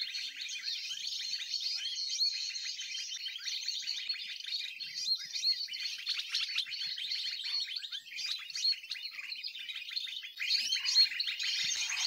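Dense, unbroken high-pitched chirping and twittering of many small birds, one rapid note after another.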